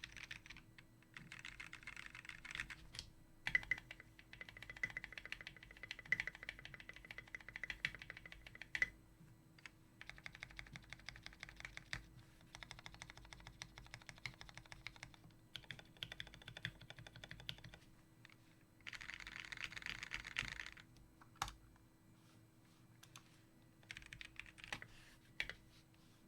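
Typing on a custom Mekanisk Fjell mechanical keyboard with lubed, filmed Gateron Brown tactile switches on a brass plate and PBT keycaps. Fast runs of keystrokes come in bursts of a few seconds with short pauses between them, and a few single strokes stand out louder.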